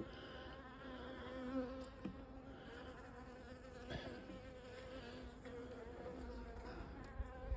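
Honeybees buzzing in flight close by: a faint, steady hum that wavers a little in pitch, with a couple of light knocks.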